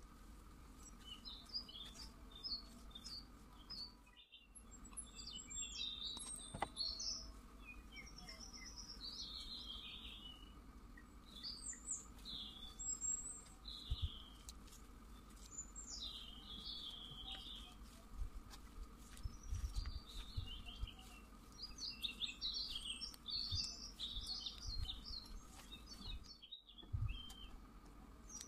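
Small birds chirping and twittering on and off, short high calls in quick runs, with a few faint low thumps in the second half.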